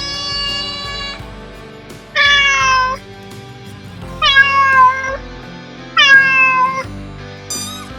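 A domestic cat meowing repeatedly: about five separate meows. The first is held steady, the next three slide down in pitch, and a higher-pitched one begins near the end.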